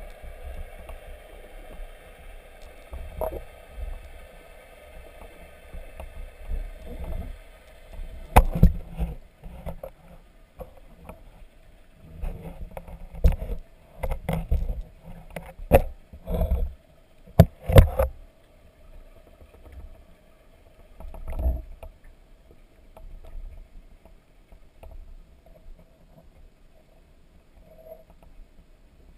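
Steady electrical hum from an underwater camera rig, with a run of sharp knocks and bumps in the middle and one more a few seconds later as the camera housing is knocked about.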